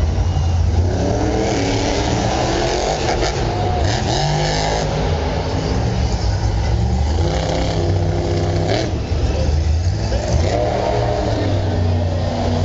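Monster truck's supercharged big-block V8 revving hard and easing off again and again as the truck ploughs through deep mud.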